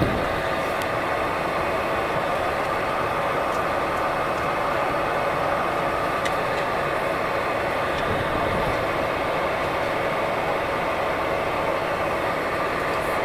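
Cabin drone of a Bombardier Dash 8-Q400's Pratt & Whitney PW150A turboprops and propellers while taxiing: a steady engine and propeller hum with several held tones at an even level. A brief knock right at the start.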